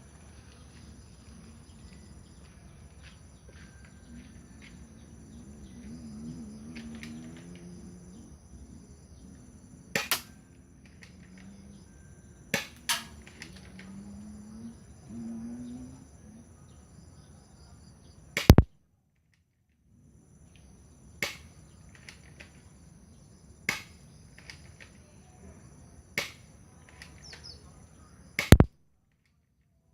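Airsoft pistol firing single shots about every two to three seconds, some shots coming as a close double crack. Steady chirring of insects runs underneath.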